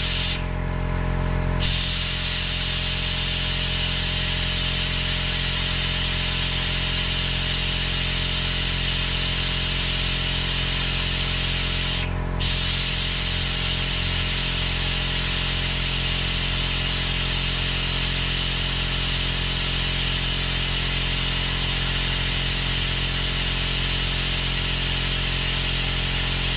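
Compressed-air vacuum brake bleeder hissing steadily as it draws brake fluid through the caliper's bleed nipple, pulling only a little fluid through. The air cuts off twice, for about a second near the start and for a moment about halfway through.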